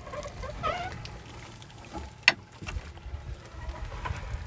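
Gill net being hauled by hand into a wooden outrigger boat, with one sharp knock about two seconds in over a low steady rumble.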